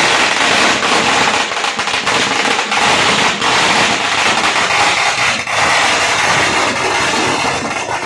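A long string of firecrackers going off in rapid succession, the bangs running together into a continuous crackle that dies down at the very end.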